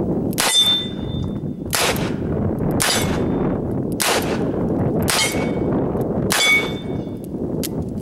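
Six shots of .44 Special from a Smith & Wesson 629 revolver fired double action, a little over a second apart. Several shots are answered by the ring of the steel target plate being hit.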